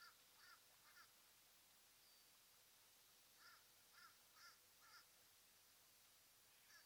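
Faint short bird calls, about two a second in runs of three or four, with a single call near the end.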